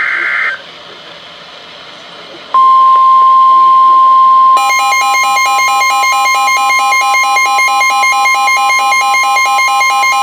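The last burst of an EAS SAME digital header, a short warbling screech, ends just after the start. About two seconds later the steady 1050 Hz NOAA Weather Radio warning alert tone begins for a tornado warning. About two seconds after that, the receiving weather radio's own electronic alarm sets off, beeping rapidly and evenly over the continuing tone.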